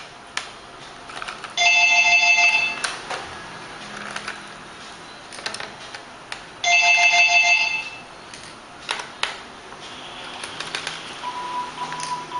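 An electronic ringtone sounds twice, each ring about a second long and about five seconds apart. Small clicks come in between, from screwdriver work on a laptop's base.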